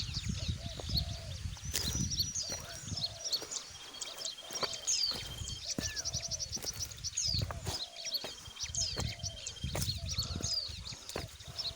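Many birds chirping and twittering, with a buzzy trill that comes and goes three times, over a low rumble that is strongest in the first few seconds.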